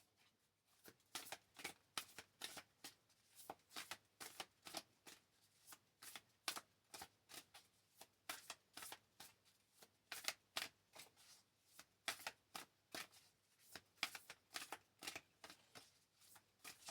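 Tarot cards being shuffled by hand: a long run of faint, sharp card clicks, about three a second.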